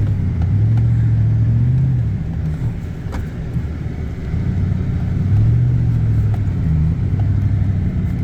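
Four-wheel-drive vehicle's engine running with a low rumble, swelling twice as it is revved, about a second in and again past five seconds, and easing off in between.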